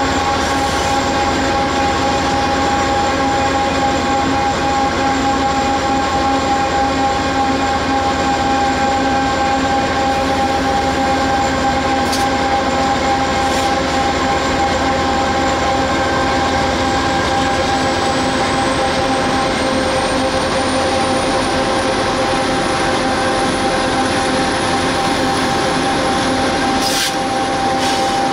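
Union Pacific SD70AH diesel-electric locomotive running steadily at about 30 mph, heard from a car driving alongside it: a loud drone with several steady tones. A faint high whine rises slightly in pitch about twenty seconds in.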